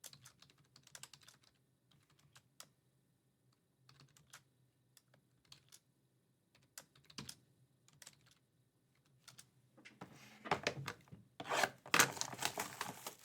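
Scattered clicks of typing on a computer keyboard, growing into a busier, louder stretch of clicking and rustling in the last few seconds.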